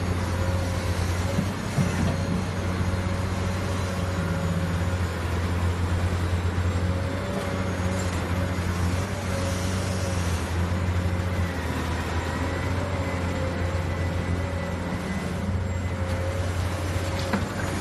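Heavy construction machinery's diesel engine running steadily: a continuous low drone with a thin steady whine above it.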